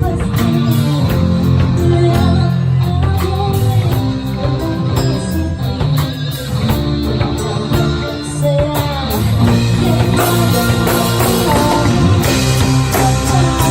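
Rock-style music with a singer over guitar, bass and drum kit.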